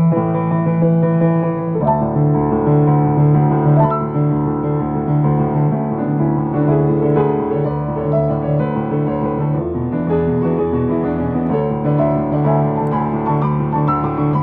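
Piano music played on a keyboard: a sustained bass line under a moving melody, filling out with a deeper bass about two seconds in.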